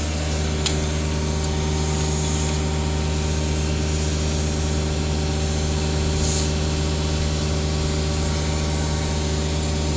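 Vacuum tanker's truck engine running at raised revs to drive its vacuum pump: a steady, unchanging drone with a hiss of suction as the hose draws liquid waste out of a cesspit.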